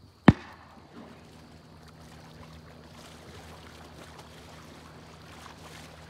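A single sharp bang about a third of a second in, then steady sloshing and splashing of a person wading through shallow marsh water.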